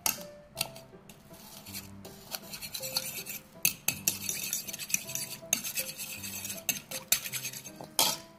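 A metal fork stirring a little liquid in a ceramic bowl, its tines scraping and clinking against the bowl in quick, uneven strokes. There are sharper clinks right at the start and near the end.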